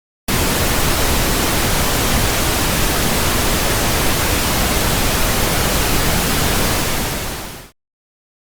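Loud, steady radio static hiss that starts abruptly and cuts out with a quick fade near the end.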